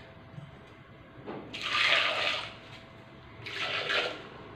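Water running in two short spells of about a second each, the first near the middle and the second near the end.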